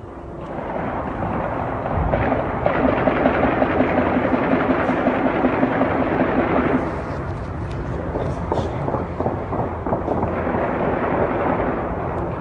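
A dense run of many rapid, overlapping bangs and crackles, heaviest in the first half, then thinning out and swelling again near the end.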